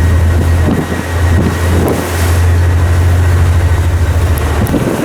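Warship's engine running as a low, steady drone, with wind noise on the microphone; the drone cuts off near the end.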